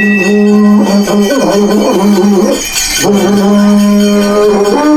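Devotional puja music: a long, steady held note, a wavering chant-like passage in the middle, then the note held again and stepping up in pitch near the end, with small bells jingling above it.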